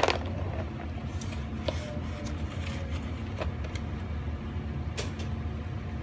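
A few light clicks and taps from a plastic marker case and paper colouring pages being handled, over a steady low hum.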